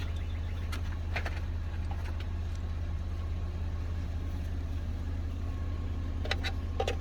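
Steady low hum of an idling engine, with a few light clicks about a second in and again near the end.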